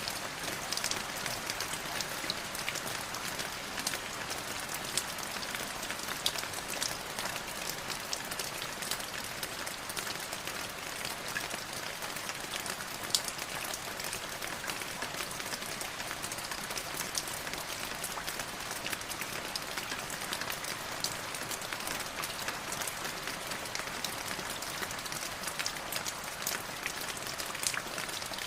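Light drizzle falling steadily, a soft even hiss of rain with many small, scattered drop ticks.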